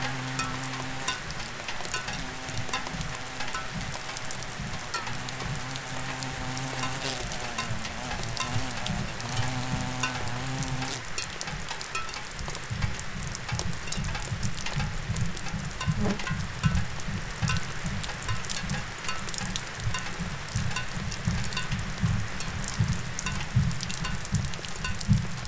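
Experimental noise soundtrack: a dense, continuous crackling with two held low tones that waver and then stop about eleven seconds in, after which a fast, rough low pulsing takes over under the crackle.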